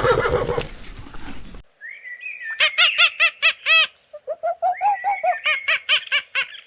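The end of a horse's whinny, then a bird calling: two runs of rapid repeated notes, about four or five a second, each run opening with a rising note.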